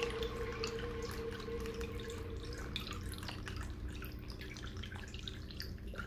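Water from a small pond-pump fountain bubbling up over rocks and trickling back into a metal wok basin: a continuous patter of small drips and splashes over a low steady hum.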